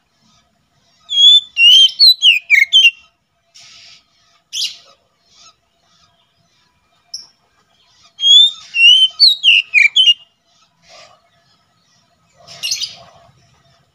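Oriental magpie-robin singing: two phrases of rapid, clear whistled notes sliding up and down, several seconds apart, with short harsh, scratchy calls in between.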